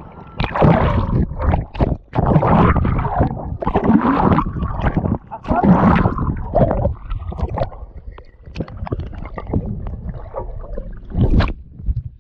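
Sea water splashing and gurgling around a waterproof action camera held at or just under the surface, in irregular loud surges with sharp knocks.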